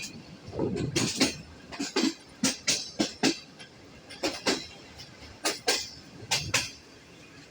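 Wheels of the Subak Raftar railcar clicking over rail joints as it rolls along, heard from on board. The knocks come mostly in quick pairs about a second apart and grow fainter near the end.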